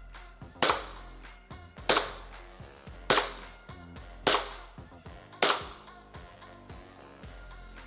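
Five shots from a Glock 17 Gen 4 green-gas blowback airsoft pistol, evenly spaced about a second apart, each short and sharp, over background music.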